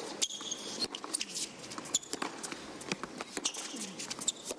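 Tennis rally on a hard court: tennis balls struck by rackets with sharp pops, and sneakers squeaking briefly on the court surface, over a low crowd hum.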